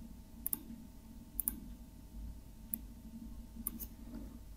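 Faint computer mouse clicks, a few short sharp clicks about a second apart, some in quick pairs, over a low steady hum.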